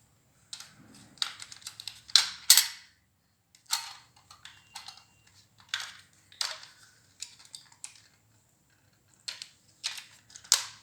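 Batteries being fitted into a plastic toy car's battery compartment: irregular sharp clicks and knocks of plastic and metal, some close together, with short pauses between.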